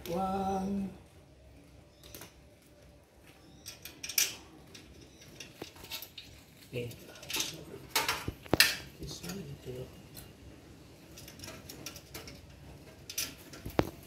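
Scattered light metallic clinks and taps as screws and sheet-metal parts of a gas water heater are handled during reassembly. A short hummed, voice-like sound comes in the first second.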